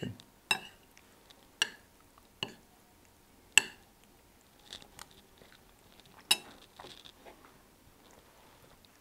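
Eating at the table: metal spoons and forks clinking against ceramic plates about five times, the sharpest about three and a half seconds in, with quieter chewing between the clinks.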